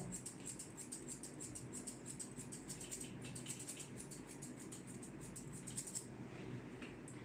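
Grooming shears snipping rapidly through a Shih Tzu's head fur: a quick run of crisp, light snips, several a second, that thins out about six seconds in.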